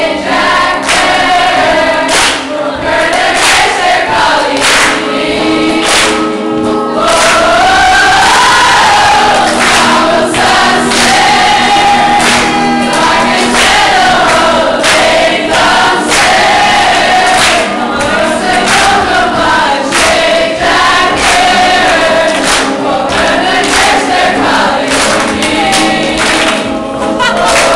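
A large group of young people singing the chorus of an Irish-language song together, loud and continuous, with band accompaniment including drums.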